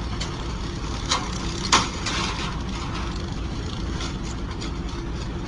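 Steady low engine rumble heard from inside a vehicle cab, with two sharp bangs a little over a second in and just under two seconds in, the second the louder, followed by a short rattle.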